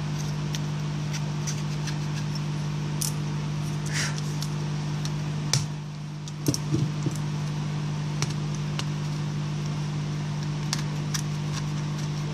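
Metal scraper blade scraping and ticking against an LG Optimus G's phone frame, clearing leftover glass and adhesive from the old screen's seat, with a few sharper taps about six to seven seconds in. Under it runs a steady low electrical hum.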